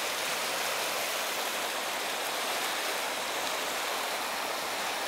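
Steady rushing of a swollen, rain-fed river's fast current.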